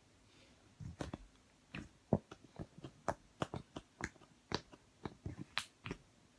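Fluffy slime being squeezed and poked by hand, giving a string of irregular sticky pops and clicks, two to three a second, starting about a second in.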